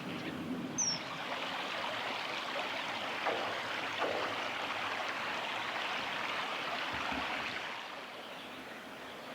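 Flowing river water, a steady rushing, that eases a little near the end. A single short, high chirp sounds about a second in.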